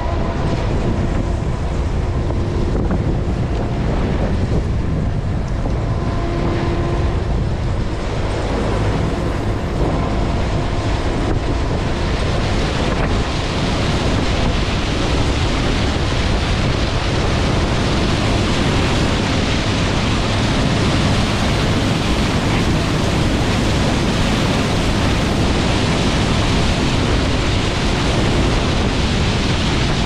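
John Deere 7720 Titan II combine's turbocharged six-cylinder diesel and threshing works running steadily while harvesting corn, a dense rushing roar mixed with wind on the microphone. A few faint humming tones fade out in the first seconds, and the noise turns brighter about twelve seconds in.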